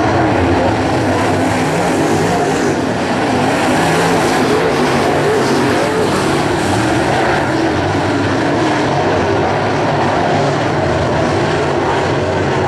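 Several crate late model race cars' V8 engines running on a dirt oval, overlapping into a loud, steady drone.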